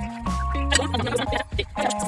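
Background music: held notes over a steady bass line.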